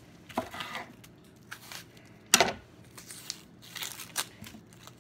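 Large kitchen knife cutting through a whole onion and knocking on a wooden cutting board, one sharp knock a little before halfway being the loudest. Between the knocks, the dry papery onion skin crackles and tears as it is peeled off by hand.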